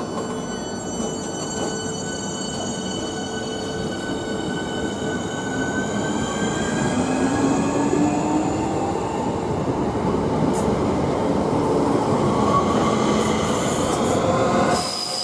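Electric multiple-unit passenger train pulling away from a platform, its traction motors whining in several tones that rise in pitch as it gathers speed, over a rumble of wheels on the rails. It grows louder as the carriages pass close by, and the sound cuts off abruptly just before the end.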